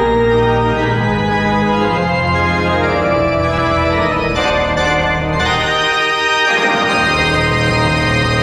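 Organ music playing sustained chords that change every second or so.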